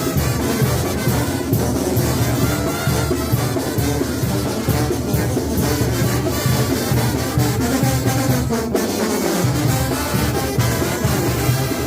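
Mexican banda brass band playing: tubas carry a heavy bass line under trumpets, trombones and drums.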